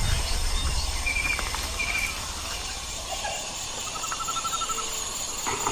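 Steady high insect buzzing with a few short bird chirps about one and two seconds in and a quick trill about four seconds in. A low rumble fades out over the first two seconds.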